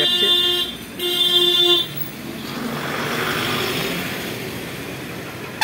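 A vehicle horn honks: one blast cuts off about half a second in and a second blast follows about a second in. After that a passing vehicle's noise swells and fades.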